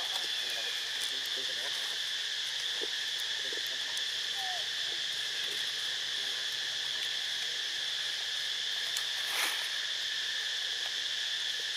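A steady chorus of insects, a continuous high-pitched drone. A short burst of noise comes about nine seconds in.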